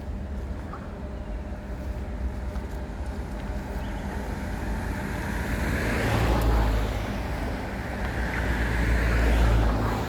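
Road traffic, a steady low rumble with two vehicles passing, one about six seconds in and one near the end.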